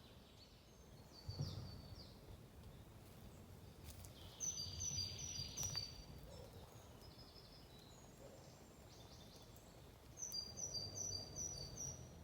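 Forest birdsong, faint: a small bird sings two bouts of five or six quick, high, repeated notes, one around the middle and one near the end, with a few scattered chirps between them. A low thump comes about a second in.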